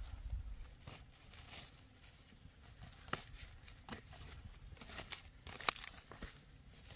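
Irregular rustling and crackling with scattered sharp snaps, the loudest one a little before the end.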